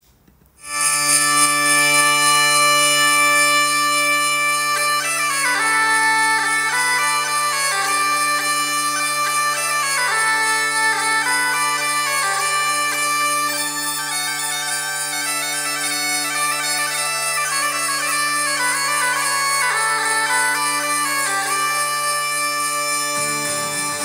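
Bagpipe music. The steady drones sound in under a second in, and about five seconds in the chanter starts playing a melody over them. The drones stop shortly before the end.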